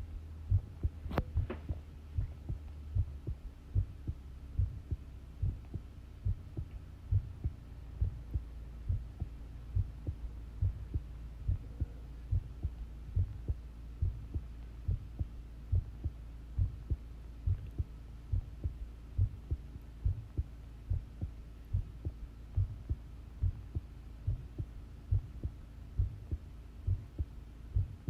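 Human heartbeat recorded close up: a regular run of low thumps over a steady low hum. A single sharp click comes about a second in.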